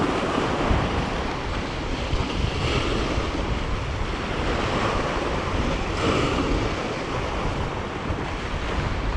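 Sea surf breaking and washing over the rocks of a jetty, a continuous wash that swells a little twice, with wind buffeting the microphone.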